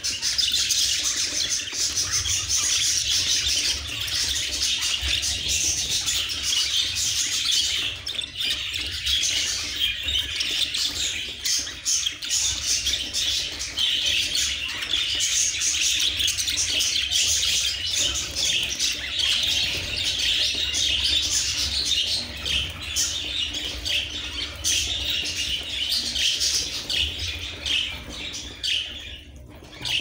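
A flock of budgerigars chattering and chirping continuously, with wings fluttering as they crowd onto a hand for seed. The chatter dips briefly near the end.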